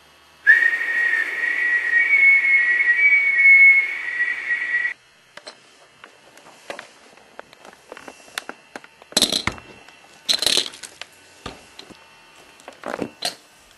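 A whistle blowing one steady, slightly wavering blast of about four and a half seconds, with a breathy hiss under it. After it, scattered light clicks and taps, with a few sharper knocks in the second half.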